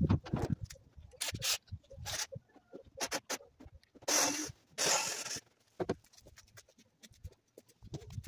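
Scattered clicks and knocks of a cordless drill and hand tools being handled on a car's body, with two short rushing sounds about four and five seconds in.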